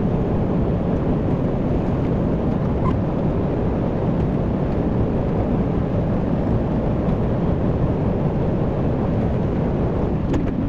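Tractor engine running steadily while baling hay, a steady low rumble.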